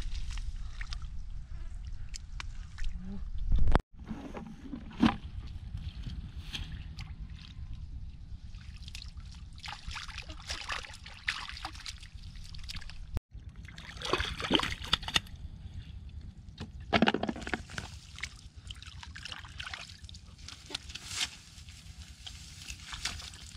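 Hands groping in shallow mud and muddy water for catfish: irregular sloshing, squelching and small splashes, some louder than others.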